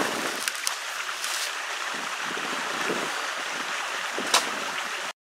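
A steady rushing hiss with a few small clicks and one sharper knock near the end, then the sound cuts off abruptly to silence.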